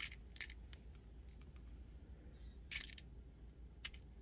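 Small glass ginkgo beads clicking and rattling as they are fiddled back into a small plastic bead container: a few faint separate clicks, with a slightly longer rattle a little under three seconds in.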